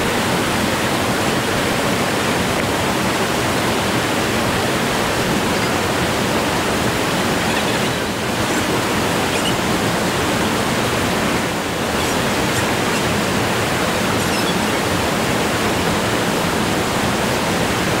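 Mountain waterfall rushing close by: a loud, steady, unbroken roar of falling water.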